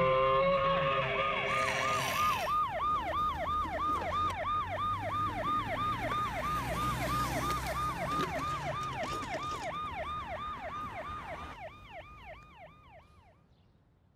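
Electronic toy ambulance siren: a quick falling wail repeated about three times a second, fading away over the last few seconds. Near the start it overlaps the end of a lower, held sound.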